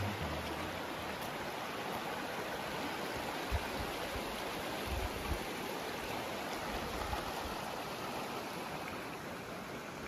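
Shallow mountain creek running over rocks, a steady rush of water that grows a little quieter near the end.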